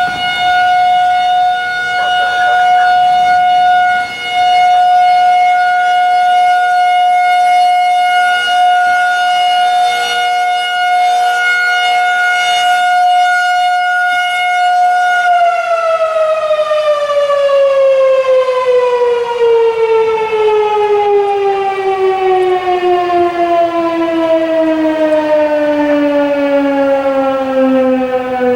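Federal Signal 2001-SRN outdoor warning siren sounding its steady alert tone for a severe weather warning. About halfway through it begins winding down, its pitch sliding slowly and steadily lower as the rotor coasts to a stop at the end of the activation.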